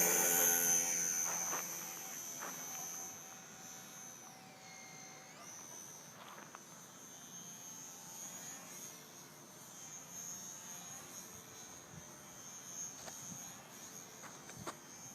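Electric motor and propeller of a HobbyZone Super Cub RC plane: loud in the first second or two, then fading over a few seconds to a steady faint buzz with a thin high whine as the plane flies off, the whine dipping briefly in pitch about four to five seconds in.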